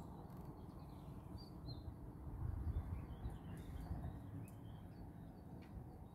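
Small birds chirping here and there, short high calls, over a low rumbling background noise.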